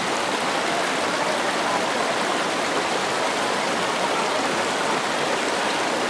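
A shallow, rocky stream running over stones, heard as a steady rushing of water.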